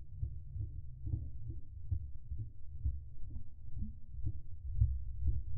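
Deep, rhythmic underwater throbbing, about two to three pulses a second and growing louder toward the end: the slowed-down sound of a Picasso Shock Blade Heavy Cover chatterbait's blade vibrating as the lure is pulled through the water, played at a tenth of real speed.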